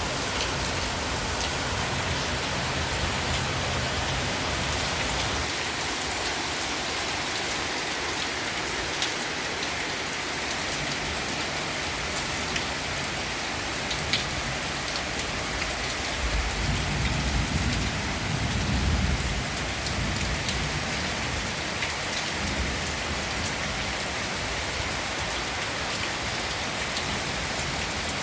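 Downpour falling steadily, with sharp drop ticks now and then; a low rumble swells for about three seconds past the middle.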